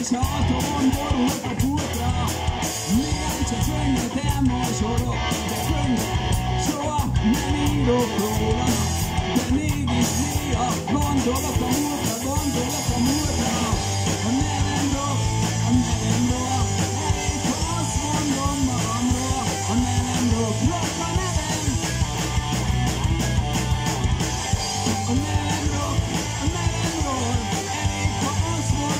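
Live hard-rock band playing: distorted electric guitar, bass guitar and a drum kit driving a steady beat.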